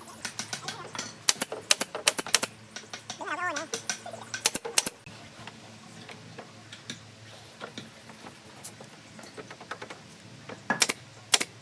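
Pneumatic nail gun firing nails into pine roof boards, sharp clacks in quick runs of several shots with pauses between.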